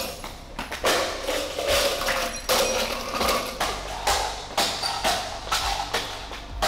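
A metal hurricane lantern being banged and knocked about: a quick, irregular run of sharp knocks and thuds, about two or three a second.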